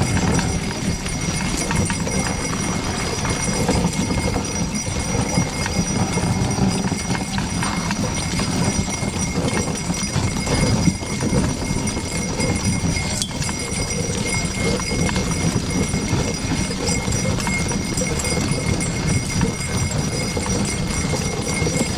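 A harnessed pair of ponies' hooves clopping steadily on a packed snow road as they pull a driven vehicle. A thin, steady high ringing runs over the hoofbeats.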